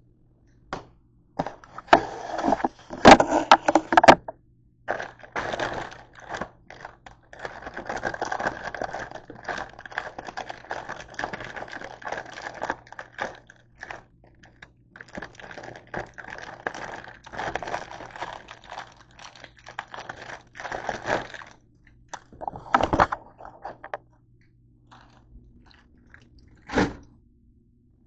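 Clear plastic produce bag of green seedless grapes crinkling and crackling as it is handled, in bursts, loudest a few seconds in, with two short separate crackles near the end.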